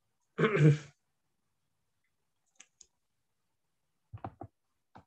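A short vocal sound from a man about half a second in, then silence broken by two faint clicks near the middle and brief voice fragments near the end.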